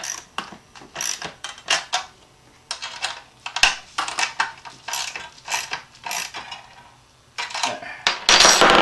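Quarter-inch socket ratchet with a deep socket, clicking in short repeated strokes (about two to three a second) as a nut is tightened onto a bolt, with a louder, longer rattle near the end.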